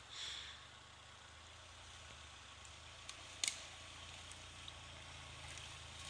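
Faint, steady low hum of a VW Golf Mk2's engine as the car comes over the crest of a forest slope and starts down, growing slightly louder near the end. A single short sharp click about three and a half seconds in.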